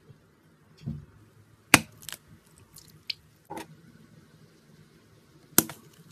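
Scissors snipping into rubber stress balls: a handful of sharp snips and clicks, the loudest about two seconds in and again near the end, with a dull soft squish about a second in.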